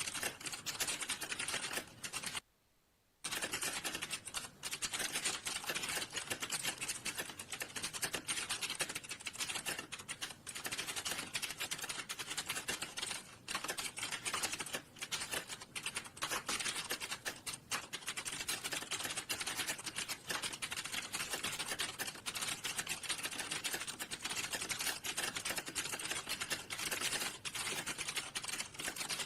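Fast, continuous typing on a computer keyboard, key clicks in a dense unbroken run, with one short pause of under a second near the start.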